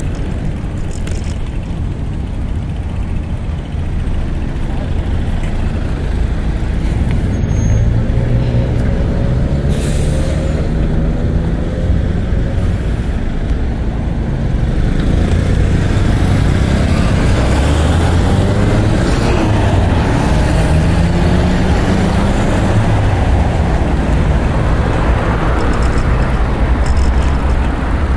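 Road traffic passing close by: the engines of heavy vehicles rise and fall in pitch over a steady low rumble, with a short hiss about ten seconds in.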